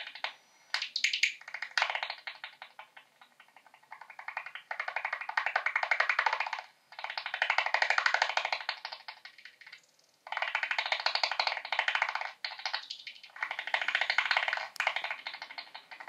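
Bat echolocation calls made audible by a bat detector: dense trains of rapid clicks in bouts of two to three seconds, with short pauses between them.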